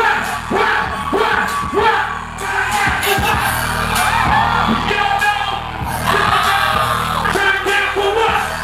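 Loud live music with singing and a steady beat of about two strokes a second, and a crowd yelling and whooping along.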